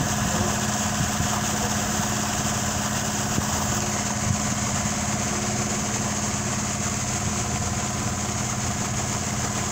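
Engine running steadily at constant speed, supplying the pressure that drives the siphoning of the well, with muddy water gushing out of the discharge pipe as a steady rush.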